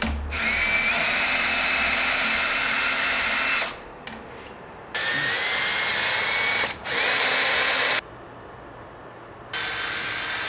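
Ridgid cordless drill/driver running in four bursts, the first and longest about three and a half seconds, each starting with a whine that rises in pitch as the motor spins up. It is driving the through-bolt fasteners on a screen printing press's print head.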